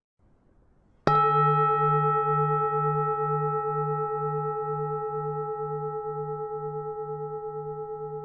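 Buddhist temple bell struck once about a second in, then ringing on and fading slowly, its low tone pulsing about two or three times a second.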